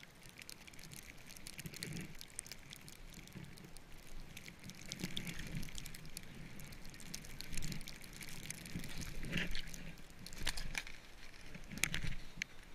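Snowboard sliding and turning through powder snow, a rising and falling swishing heard from a camera on the rider, with bumps and wind on the microphone. Scattered sharp clicks and knocks run through it, a few louder ones in the second half.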